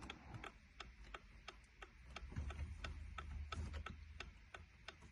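Steady ticking of a 2018 Dodge Durango's hazard-light flasher, about three clicks a second. There is soft rustling of hands working under the dash in the middle.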